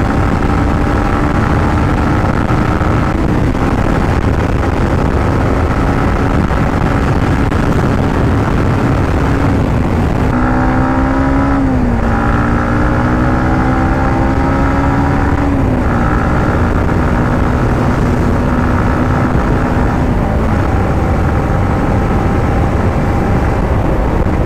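Yamaha MT-15's single-cylinder engine running at road speed under a heavy, steady rush of wind noise. The engine note dips and climbs in pitch a few times, about three seconds in, around the middle and again later, as the throttle changes.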